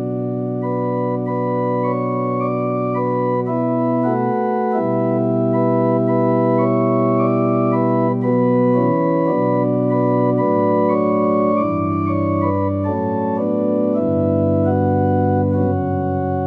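Kawai CA67 digital piano's organ voice playing a slow Czech liturgical piece in held chords, each sustained for a second or two before moving to the next, over a steady bass line.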